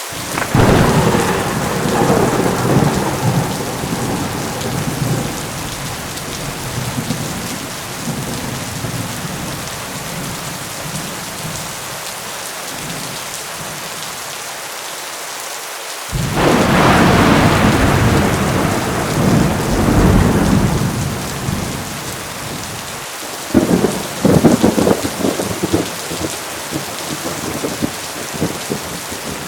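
Steady heavy rain with three rolls of thunder. The first starts just after the beginning and rumbles away over several seconds, the second comes a little past halfway, and the third, near the end, is a shorter, sharper clap.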